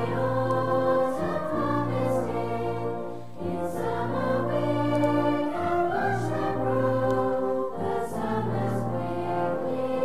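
Music with slow, held chords that change about every two seconds.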